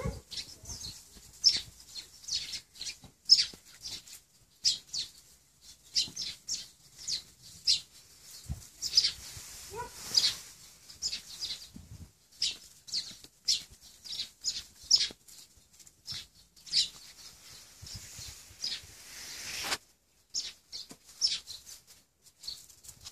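Small birds chirping over and over, a steady scatter of short, high-pitched calls.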